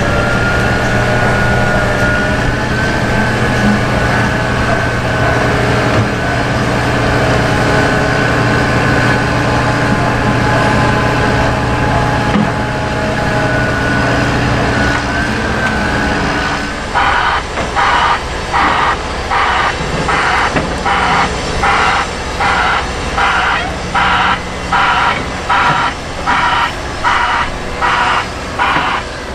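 Diesel engine of a motor grader running steadily, with a thin high whine over it. About two thirds of the way through, a reversing alarm starts beeping at about one and a half beeps a second.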